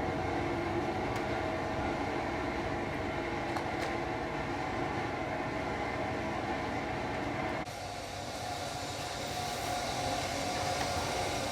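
A machine running steadily, a continuous hum of several held tones over a noisy whir; the sound changes abruptly about eight seconds in.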